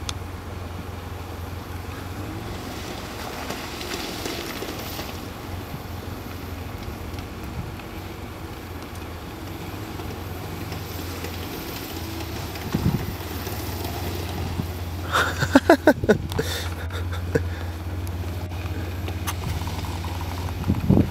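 A 4x4's engine running steadily at low revs, with wind on the microphone. About fifteen seconds in, a short burst of louder, sharp sounds.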